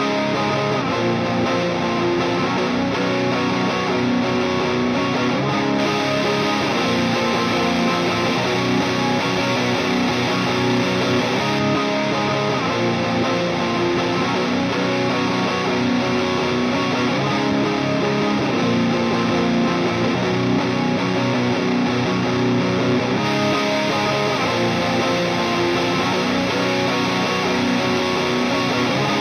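Electric guitar riff played through a Tube Screamer-style overdrive plugin (Audiority Green Reaper, modelled on the Ibanez TS-9) with drive and level all the way up, into a clean amp-sim channel. The overdrive's clipping mod is switched a few times, changing the amount and character of the distortion.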